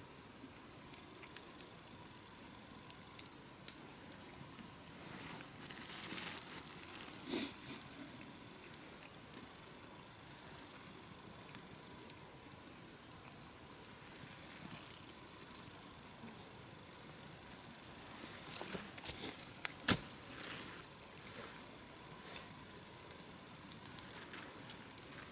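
Faint outdoor quiet broken by small scattered clicks and two short spells of rustling, with one sharp click about twenty seconds in as the loudest sound.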